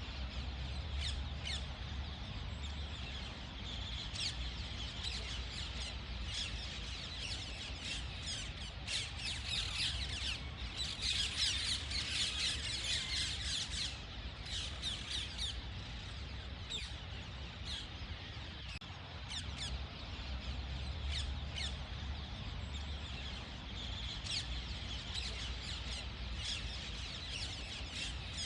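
Ring-necked parakeet squawking and chirping in quick, repeated short calls, busiest around the middle, over a steady low rumble.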